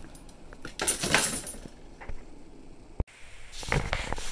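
Thin metal umbrella ribs rattling and clinking as they are handled, with a louder burst of clatter about a second in and a single sharp knock about three seconds in.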